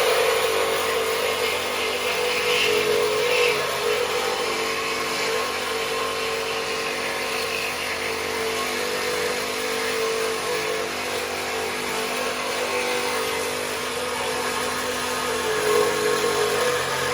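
Reciprocating saw running steadily as it cuts through the steel truck frame, with an even whine over a rasping scrape.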